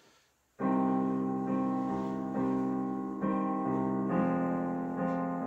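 Digital piano playing the opening chords of a song. It starts just over half a second in, with a new sustained chord about every second.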